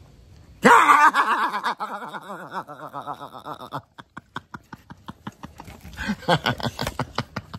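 A man bursts into loud laughter about half a second in, then laughs on in quick pulses. Around the middle there are a few seconds of short clicks, and more laughter comes near the end, while boxer dogs lick his face.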